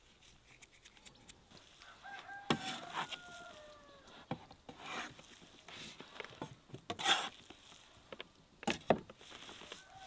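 Meat cleaver chopping minced meat on a wooden board: irregular dull chops, a few of them sharper and louder. A rooster crows in the background about two seconds in, and chickens call again near the end.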